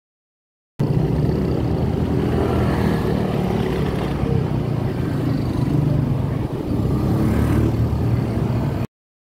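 Riding a Honda automatic scooter in slow street traffic: steady low engine and road noise, starting suddenly about a second in and cutting off suddenly near the end.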